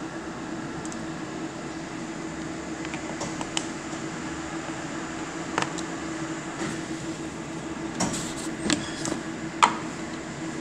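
Steady electric motor hum, like a fan, with light clicks and knocks as a can and a plastic jar are handled on a steel kitchen counter. The clicks come more often in the second half, and the loudest is a sharp, briefly ringing knock near the end.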